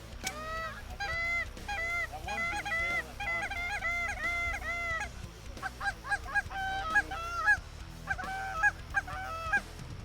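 Canada geese honking: a fast run of repeated honks, each rising and falling in pitch, for about five seconds, then after a short pause two more bursts of louder honks.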